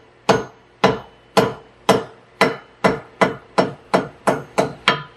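Hammer striking the copper head of a hand soldering copper held on a steel stake, about a dozen sharp metallic blows, each with a short ring. The blows come about two a second at first and quicken to about three a second near the end, forging the tip to shape.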